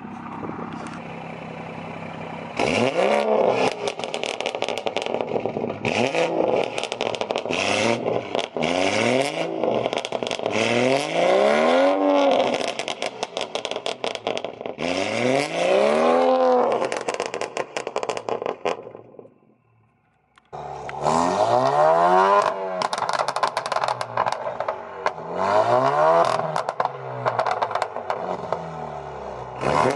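Exhausts of two tuned cars, an Alfa Romeo Giulia and a BMW 3 Series (F30), revved hard from standstill over and over, about every two seconds: each rev rises and falls in pitch, with crackling pops on the overrun. A brief gap of near silence comes about two-thirds of the way through.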